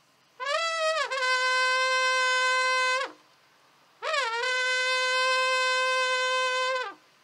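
Trembita, the long wooden Hutsul horn, sounding two long blasts of about three seconds each on one note. Each blast opens with a short bend in pitch before holding steady and ends with a quick fall in pitch.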